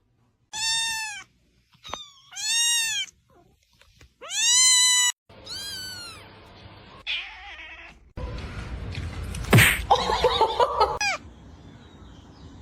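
Cat meowing loudly four times in a row, each call a drawn-out meow that rises then falls in pitch. A noisier stretch follows, with a short sharp sound and further tangled cries about two-thirds of the way through.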